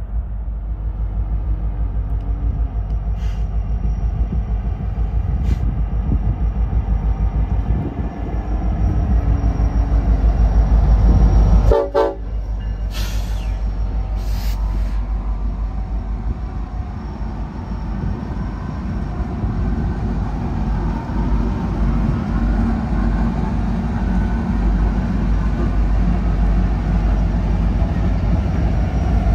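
Union Pacific train passing, its diesel locomotives giving a steady low rumble with wheel noise on the rails. The locomotive horn sounds briefly about twelve seconds in.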